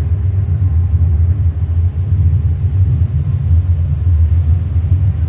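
Wind buffeting the microphone: a steady, loud low rumble that surges and dips irregularly.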